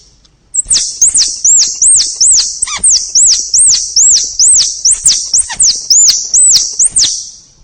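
Squirrel calling: a rapid series of short, high chirps, each rising and falling in pitch, about three a second, stopping about a second before the end.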